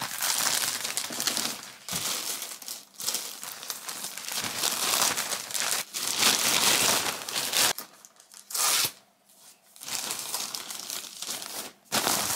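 Plastic mailer bag crinkling and rustling in irregular bursts as clothes are packed into it, with a lull about eight seconds in.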